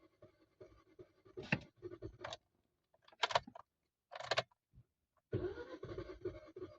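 Car keys rattling and clicking in the ignition of a Hyundai i20, then about five seconds in the starter motor cranks the engine with an even, rapid pulsing, and the engine does not fire. The car cranks but will not start: a no-start fault that the owner suspects is fuel not reaching the engine.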